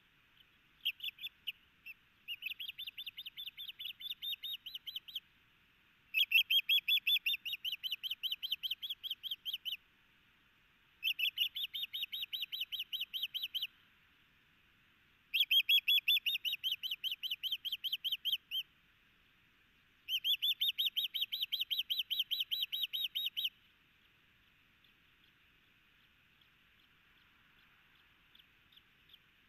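Osprey calling: runs of rapid, high whistled chirps, each run about three seconds long, repeated five times with short pauses between.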